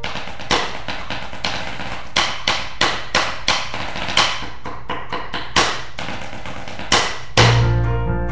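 Snare drum part played with drumsticks: rapid rolls broken by sharp accented strokes. A piano recording comes in with low chords near the end.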